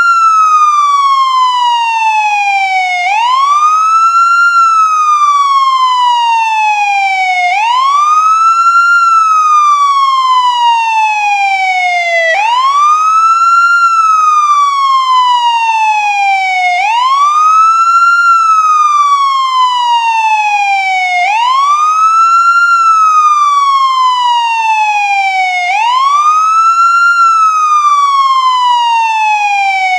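American ambulance siren in wail mode: the pitch sweeps up quickly, then glides slowly back down, repeating about every four and a half seconds.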